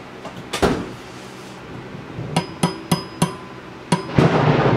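Hammer tapping on the crankshaft key of a Predator 212 engine to drive it out of its keyway: one sharp metallic tap about half a second in, then a run of five taps, roughly three a second, from about two and a half seconds in. Near the end a loud clap and rumble of thunder breaks in and is the loudest sound.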